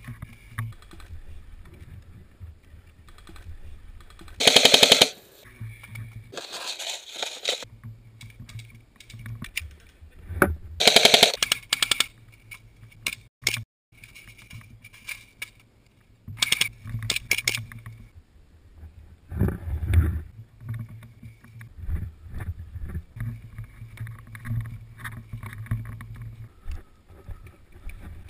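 TGC/BOYi Custom SC-L SQD airsoft replica rifle firing several short full-auto bursts of rapid, evenly spaced shots, with some single shots in between.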